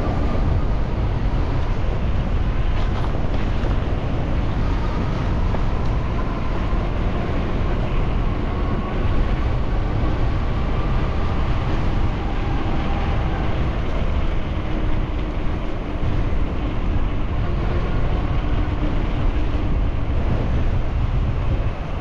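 Steady wind noise buffeting an action camera's microphone, mixed with road and traffic noise, while a bicycle is ridden down city streets.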